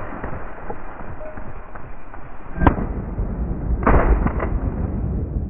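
Two shotgun shots about a second apart at a flushing pheasant, after rustling through dry leaves and brush; the bird is brought down.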